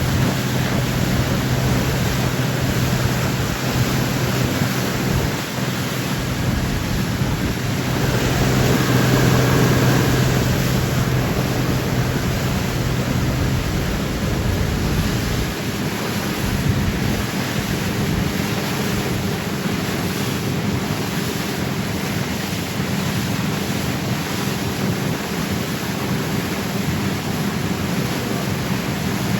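Boat under way: a steady engine hum under a loud rush of wind and water noise. The engine's hum steps up in pitch about halfway through.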